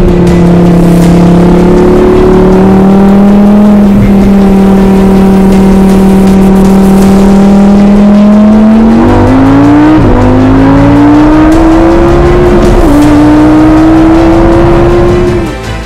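Car engine sound effect: a loud, steady high engine drone, then revving up through the gears, the pitch climbing and dropping back at each shift about ten and thirteen seconds in, before it cuts off suddenly near the end.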